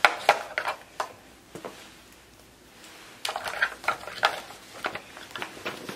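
Handling noise of small hard plastic objects, camera batteries and a battery charger, clicking and rattling in the hands: a few clicks in the first second or so, a lull, then a busier run of clicks and knocks about three seconds in.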